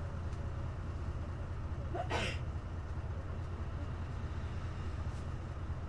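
Hino Blue Ribbon KC-HU2MMCA city bus engine running steadily at an even low pitch, heard from inside the bus. A short hiss comes about two seconds in.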